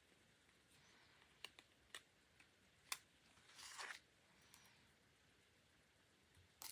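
Faint handling of paper and stationery at a desk: a few light taps and clicks, and a short paper rustle about three and a half seconds in.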